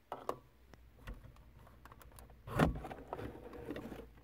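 Clicks and knocks of plastic handling as a rear-view mirror is worked off its windshield mount, with one louder knock about two and a half seconds in.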